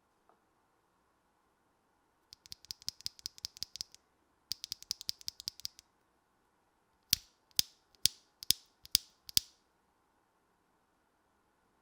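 Mechanical keyboard with HMX Ziwei switches being typed on: two quick runs of keystrokes, then about seven single, louder key presses a little under half a second apart.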